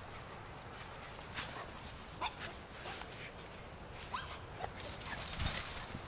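A dog giving a few short, high whimpers about two and four seconds in. Near the end there is a louder rustle with a thump.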